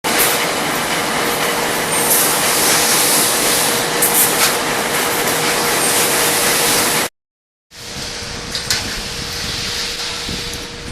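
GWCD-2500 wire mesh fence welding machine running: a loud, steady mechanical din with a constant hum. The sound cuts out abruptly about seven seconds in, then comes back quieter with a few sharp clicks.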